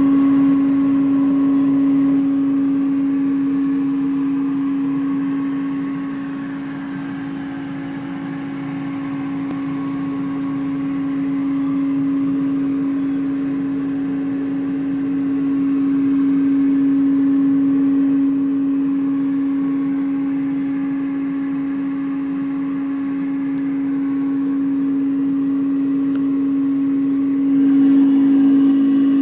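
Home-built CO2 laser engraver running while it engraves: a steady whirring hum with one strong low pitch over a noisy bed, swelling and fading slowly and growing a little louder near the end.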